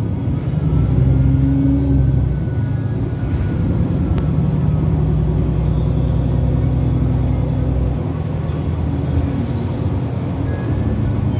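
Cabin sound of an Otokar Kent C-12 city bus under way: its diesel engine running steadily with road and tyre noise. The deepest part of the engine hum drops away about eight seconds in.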